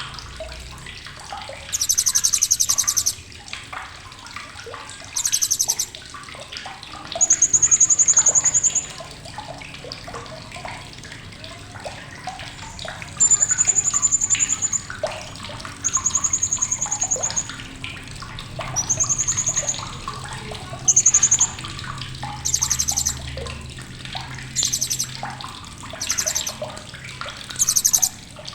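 Blue-crowned hanging parrot (srindit) calling: sharp, rapid buzzy chattering bursts about a second long, alternating with high, thin, drawn-out whistles, repeated every second or two.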